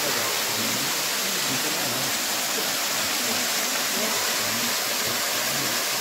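Waterfall pouring down a rock face into a pool: a steady rushing hiss of falling water.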